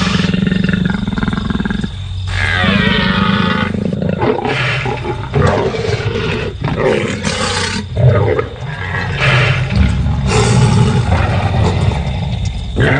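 Dinosaur roars from a Nanotyrannus pack attacking a Triceratops: a string of loud, overlapping roars, several falling in pitch, over a low rumble.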